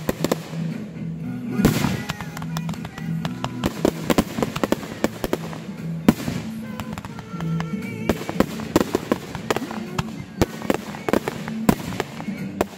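Aerial fireworks going off in quick succession: a dense string of bangs and crackles from bursting shells, with music playing underneath.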